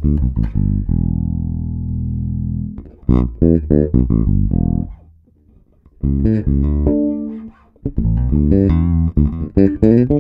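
Electric bass guitar played through a Darkglass Hyperluminal compressor pedal, with the compressor engaged and reducing gain. One long held low note comes first, then quick runs of short plucked notes, a brief pause around the middle, and more lines.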